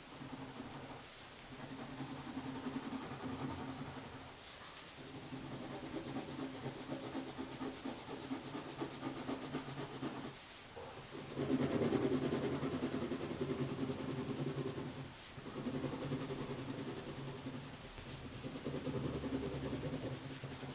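A drawing tool rubbing on paper while a drawing is shaded. Under it runs a steady low hum with a clear pitch, broken by brief dips every few seconds and loudest about halfway through.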